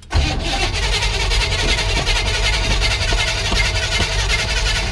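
A 1964 Chevrolet Impala's engine turning over after sitting for about ten years, a steady loud churning run that stops near the end.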